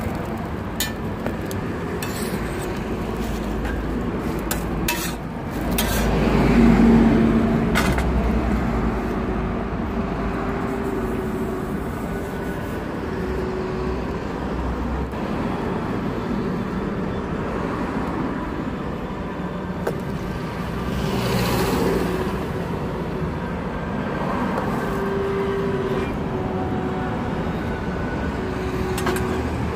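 Steady street traffic noise, with passing vehicles swelling louder about six seconds in and again about twenty-one seconds in. A few sharp clicks in the first eight seconds.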